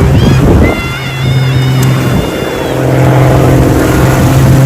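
A steady engine drone, loud and unchanging in pitch, easing briefly midway. In the first couple of seconds a high wavering whistle-like tone sounds over it.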